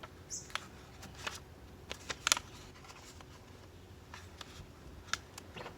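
Hands working vinyl wrap and paper around a car door handle: a scattering of short taps, scrapes and rustles, the loudest just past two seconds in.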